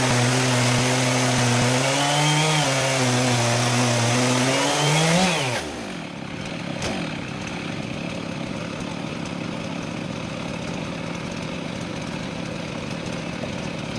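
Chainsaw on a homemade chainsaw mill running, its pitch wavering and rising briefly twice. About five and a half seconds in, the engine pitch falls away quickly and it stops, leaving a steady quieter hiss.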